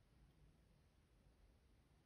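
Near silence, with only a faint low rumble in the background.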